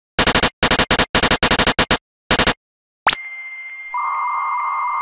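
Retro computer-style electronic sound effects: a quick run of short buzzy beeps, a click about three seconds in, then a steady high tone over hiss, joined about a second later by a second, lower tone, like an old modem or dial tone.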